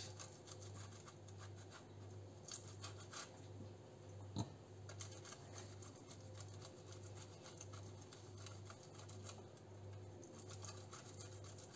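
Hard-boiled egg rubbed over the coarse side of a metal box grater: faint, repeated scraping strokes, with one sharper click about four seconds in, over a low steady hum.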